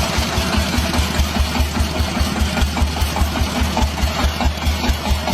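Small diesel engine driving a water pump, running loudly and steadily with an even, fast low chugging beat.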